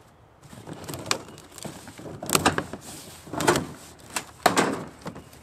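Large cardboard shipping crate being pulled and bent open by hand, the cardboard scraping and rustling with sharp crackles in several loud surges, the strongest about two, three and a half and four and a half seconds in.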